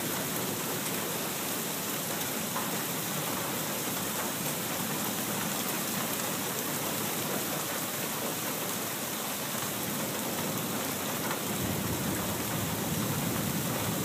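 Steady drenching rain falling, an even hiss; a low rumble of thunder comes in near the end.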